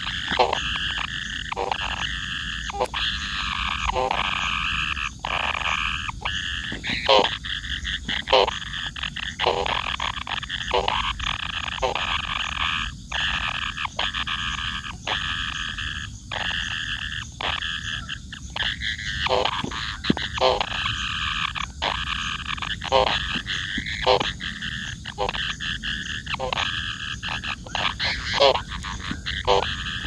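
Steady chorus of animal calls: a continuous high buzzing with short croaking pulses about twice a second throughout.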